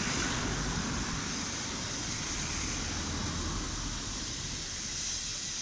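Steady hiss from steam locomotives standing in steam in a station yard, mixed with a low, unsteady rumble of wind on the microphone.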